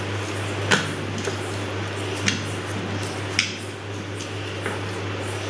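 Soft clicks and taps of hands pressing wheat-flour pizza dough out across an oiled iron dosa pan: three short clicks a second or so apart and a fainter one later, over a steady low hum.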